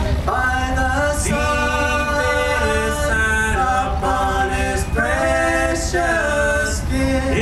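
Men's voices singing a bluegrass gospel song, with long held notes that step in pitch from phrase to phrase.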